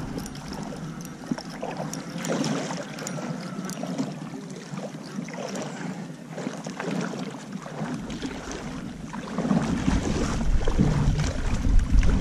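Water splashing and sloshing as a hooked coho salmon is played close to the bank on a spinning reel, with the reel being cranked at first. Wind starts rumbling on the microphone about eight seconds in and grows louder near the end.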